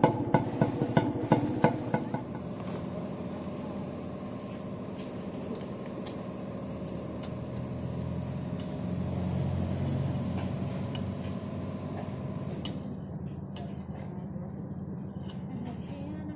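Sharp tapping about three times a second for the first two seconds, then a steady low machine hum with scattered faint metallic clicks as a screwdriver works inside a motorcycle's exhaust tip.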